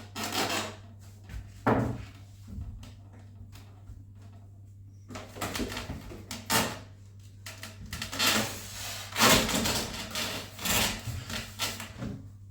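Handling noises from fitting the bottom hatch on an RC foam biplane: irregular rubs, scrapes and light knocks, sparse at first and busier in the second half, over a steady low hum.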